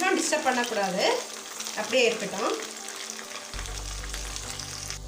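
Oil sizzling and bubbling steadily as aval (poha) vadai deep-fry in a pan of hot oil, with background music of held notes and sliding tones over it.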